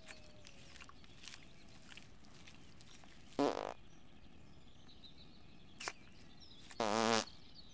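Cartoon fart sound effects from a cow breaking wind: a short one about three and a half seconds in, then a longer, rippling one near the end, over faint birdsong.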